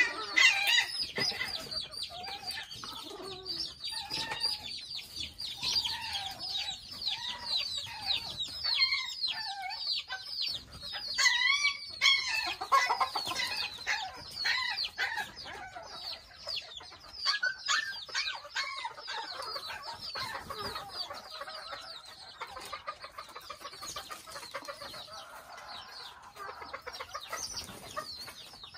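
Flock of miniature Thai bantam chickens clucking, with many rapid high peeps and chirps going on throughout.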